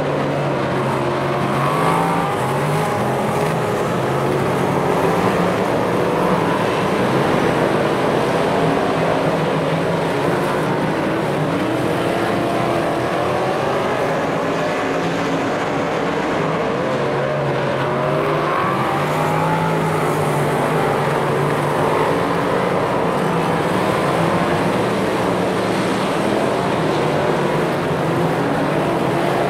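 A pack of superstock stock cars racing: several engines running at once, their revs rising and falling in waves as the cars go round the track.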